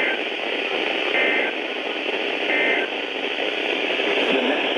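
Radio static hiss carrying short bursts of Emergency Alert System (SAME) digital data tones, one about every 1.3 seconds, three in all. The hiss cuts off suddenly at the end.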